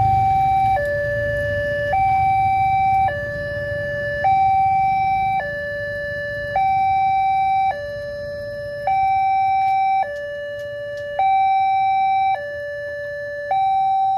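Railway level-crossing warning alarm, an electronic two-tone signal alternating between a low and a high tone, each held a little over a second. It is the warning that a train is approaching the crossing.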